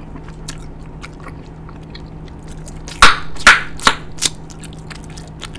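Bubble gum being chewed with the mouth open: soft wet clicks, then about three seconds in a quick run of four loud smacks.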